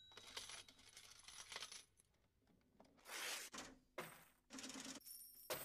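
Faint clinking and jingling of coins in several short separate rattles.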